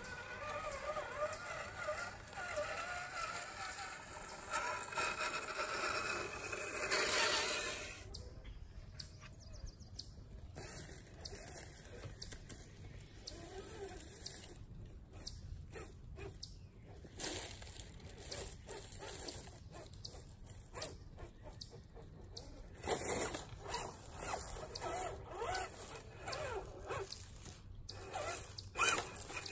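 RC4WD TF2 scale crawler's electric motor and gears whining, the pitch rising and falling with the throttle, loudest just before eight seconds. After that, scattered clicks and crackles as it picks its way through wet brush, with the whine coming back in short bursts near the end.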